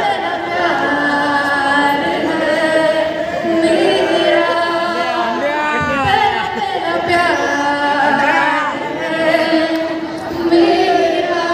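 A woman singing a slow melody, with long held notes and gliding runs.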